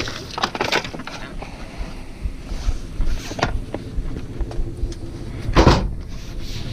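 Long rubber-covered metal bars knocking and clattering as they are handled and loaded into the back of a van, with several separate knocks and the loudest clunk a little before the end.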